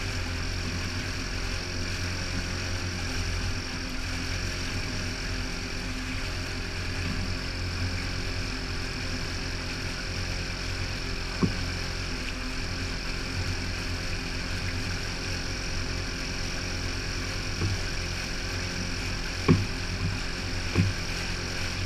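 Outboard motor running steadily under way, towing a jet ski, with a low, even drone and a few short sharp knocks near the middle and end.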